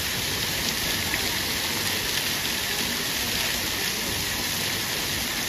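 Steady hiss of falling and splashing water.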